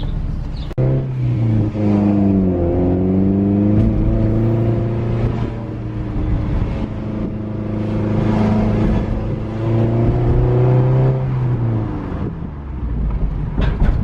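Scion tC's four-cylinder engine pulling hard through a freshly fitted short ram intake, with loud intake suction noise. The engine note comes in sharply about a second in, dips and climbs again a couple of seconds later, holds steady, and drops away near the end.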